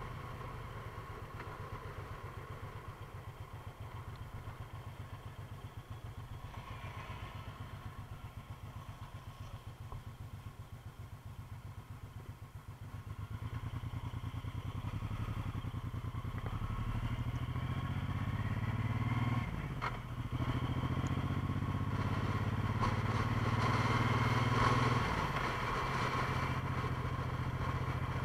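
A motor vehicle's engine running at low revs, then accelerating from about halfway through, its pitch rising and dropping back twice at gear changes.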